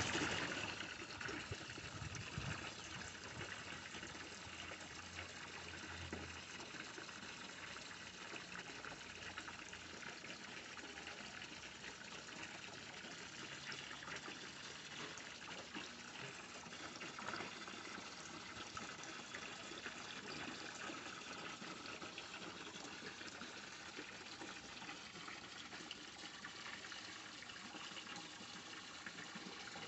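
Water splashing and trickling steadily into an aquaponics fish tank.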